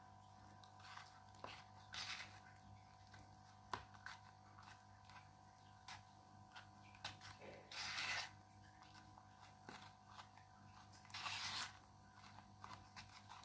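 Faint sounds of a spoon stirring and scraping thick ceramic-powder and glue paste in a plastic tub, with louder scrapes about 2, 8 and 11 seconds in, over a steady low hum.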